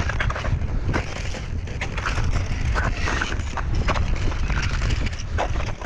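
Crampon footsteps crunching on glacier ice and snow, a short crunch every half second to a second, over a steady low rumble.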